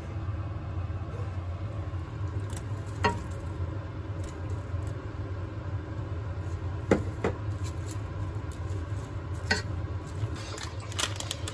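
Wooden spatula stirring melting butter in a pot, with a few short knocks of spatula and bowl against the pot as sliced onions and bacon are tipped in about halfway through and stirred. A steady low hum runs underneath.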